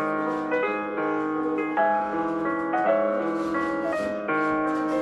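Background piano music: a soft melody of sustained notes over held chords.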